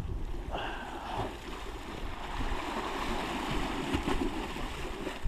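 Sea washing against the foot of a sea wall, a steady hiss of moving water, with a brief high tone about half a second in.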